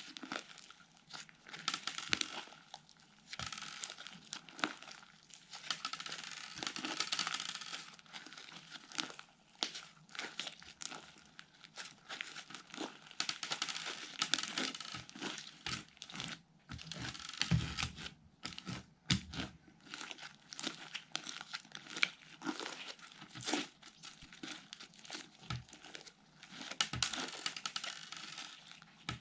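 Fluffy slime being squished and stretched by hand, giving off a dense, irregular crackling with small pops and clicks. A few dull knocks come about two-thirds of the way through.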